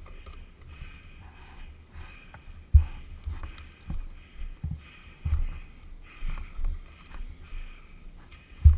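Dirt bike engine running at low speed over rough ground, heard through a camera on the bike or helmet, with uneven low thumps and jolts on the microphone; the two loudest thumps come about a third of the way in and near the end.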